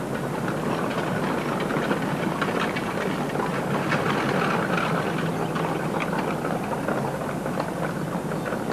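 Horse-drawn carriage crossing a stone bridge: a steady rumble of rolling wheels with scattered clicks of hooves.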